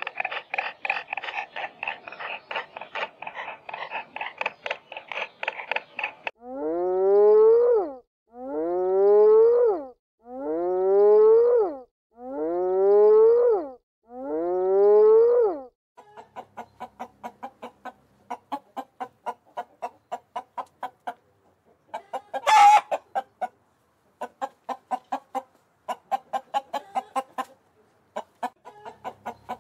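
Animal calls: about six seconds of rapid short calls, then five long calls about two seconds apart, each rising in pitch, then more rapid short calls broken by one loud sharp call.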